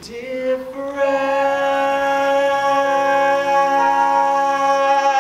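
A young singer holds one long, steady note over soft instrumental accompaniment, the drawn-out closing note of a stage-musical ballad. The voice slides up into the note at the start, and a lower accompanying chord comes in about three seconds in.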